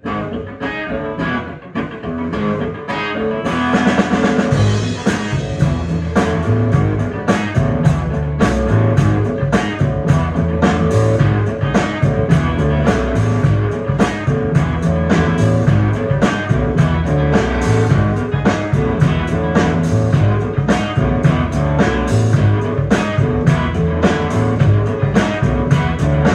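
Live trio of electric guitar, plucked upright double bass and drum kit playing a tune with a steady beat; the guitar starts alone and the drums and cymbals join about three and a half seconds in.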